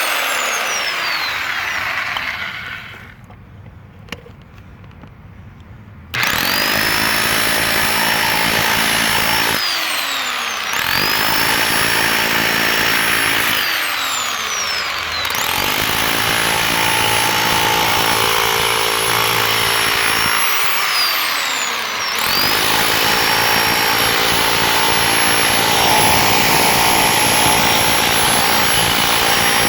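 Bauer 1641E-B corded rotary hammer in hammer-only (chisel) mode breaking up a concrete pad, running in four long bursts from about six seconds in, its motor winding down briefly and spinning back up between them.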